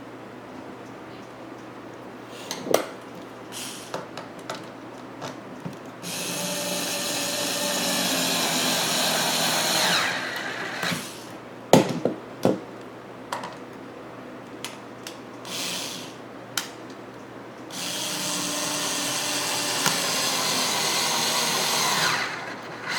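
Power drill driving two screws into pine chair boards: two steady runs of about four seconds each, the motor's pitch changing as each run ends and the screw seats. Short clicks and knocks of the boards and tool being handled come between the runs.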